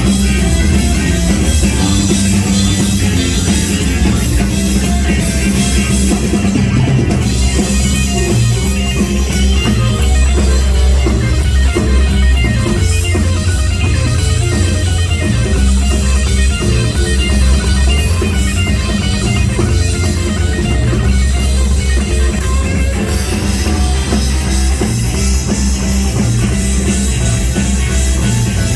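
Live rock band playing an instrumental passage: guitar over bass and drum kit.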